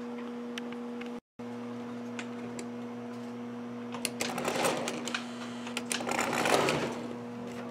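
Lionel 249E tinplate O-gauge steam locomotive's electric motor and gears whirring unevenly from about four seconds in, as it is set on the track and begins to run. A steady electrical hum sits underneath.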